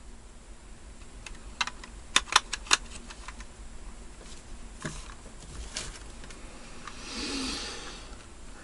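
A quick run of sharp clicks about two seconds in, a few more single clicks, then a short rustle near the end.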